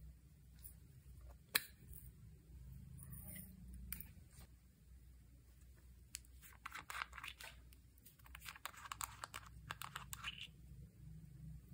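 Slime being worked and mixed by hand, crackling and crunching in two stretches in the second half, with one sharp click about a second and a half in.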